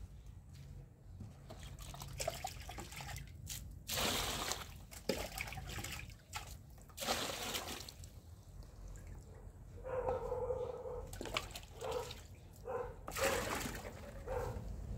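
Water thrown from a dipper splashing onto the soil, three loud splashes about four, seven and thirteen seconds in. From about ten seconds in, a dog whines in short repeated cries.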